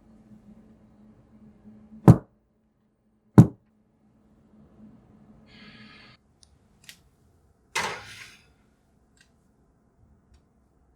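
Kitchen handling sounds: two sharp knocks about a second apart, then a short scraping hiss and a duller thud, over a faint low hum.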